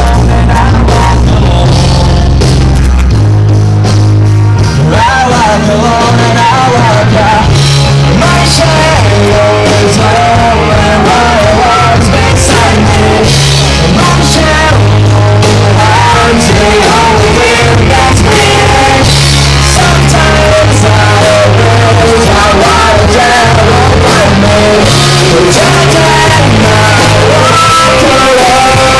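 Rock band playing: electric guitars, bass guitar and drums, with a singer's melody coming in about five seconds in.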